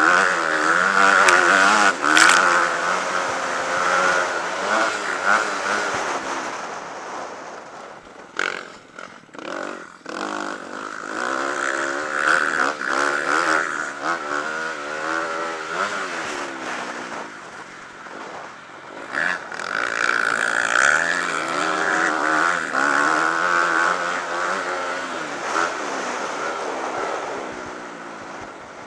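Dirt bike engine, heard from a camera mounted on the bike itself, revving up and down continuously as the rider throttles and shifts around the track. The engine note drops off briefly about a third of the way in, and again about two-thirds of the way in.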